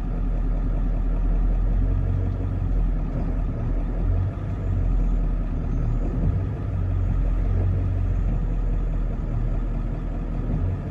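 Truck engine running steadily at low revs in four-wheel drive, heard from inside the cab.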